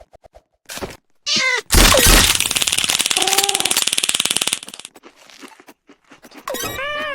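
A cat meowing, once about a second in and again near the end, with a loud, rapid, pulsing buzz for about three seconds in between.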